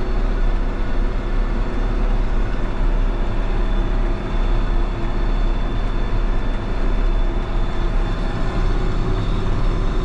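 Tractor engine running steadily under load while pulling a hay mower through the field, a constant low drone.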